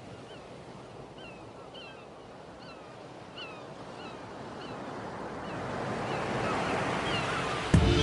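A steady rushing hiss swells louder through the second half, over short, falling bird-like chirps repeated about twice a second; music cuts in abruptly near the end.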